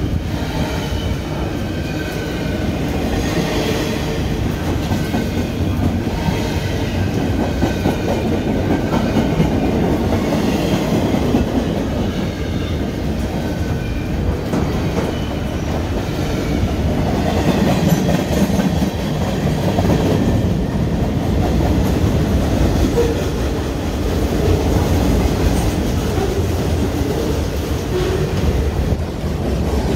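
Freight train cars rolling past at close range: a steady heavy rumble with the wheels clacking over the rail joints. Faint high wheel squeal comes and goes, mostly in the first half.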